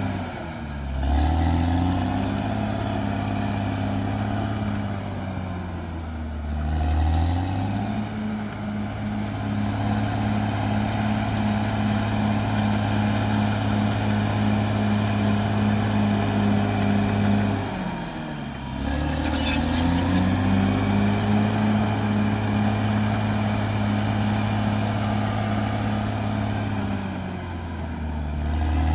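CAT D6R XL crawler bulldozer's diesel engine running steadily under load. Its pitch drops and climbs back four times: about a second in, twice in the middle, and near the end.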